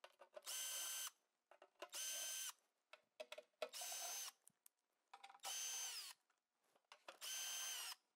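Cordless driver with a 5/16-inch socket backing out the pulley guard's screws: five short runs of motor whine, each about half a second, several winding down in pitch as the trigger is let go, with small clicks in between.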